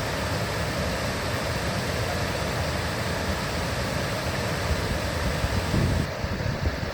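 River water rushing in a steady, loud wash, with wind buffeting the microphone in low rumbles near the end.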